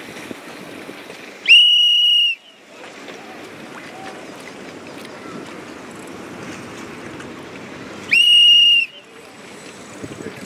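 Two loud whistle blasts, each a single steady high note lasting just under a second, about six and a half seconds apart, over steady wind and water noise.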